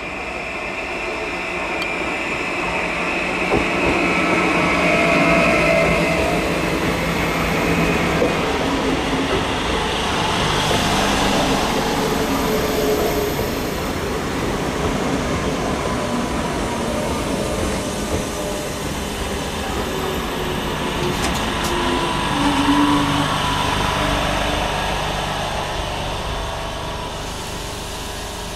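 Renfe Cercanías electric commuter train running in along the platform and slowing to a stop, with the rumble of wheels on the rails and shifting whining tones from the train. It swells over the first few seconds and eases off near the end.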